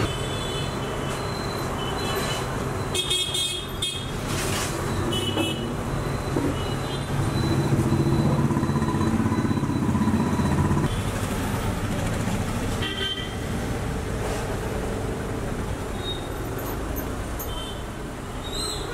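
Street traffic: vehicle engines running steadily, with short horn toots now and then. One engine runs louder for a few seconds around the middle before dropping away.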